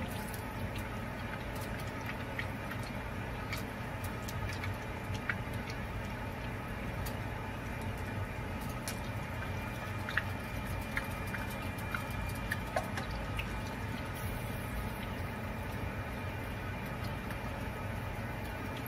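Leftover frying oil with bits of fried pork sizzling faintly in a nonstick wok, with scattered small pops and clicks over a steady low hum. A spatula stirs through the oil about halfway through.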